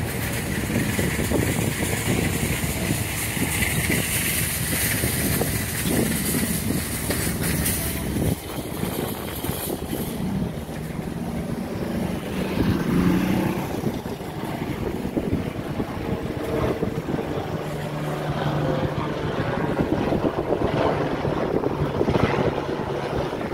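Police helicopter flying overhead, the rapid beat of its rotor steady throughout. Wind buffets the microphone over the first several seconds.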